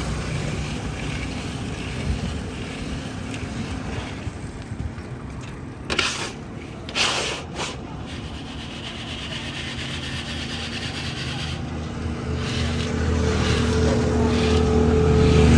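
Roadside traffic noise, with a motor vehicle's engine growing louder toward the end. Two short scraping bursts about six and seven seconds in.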